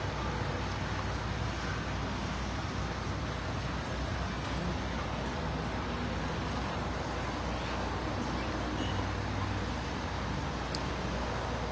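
Steady road traffic noise: a continuous low rumble of vehicles on the road.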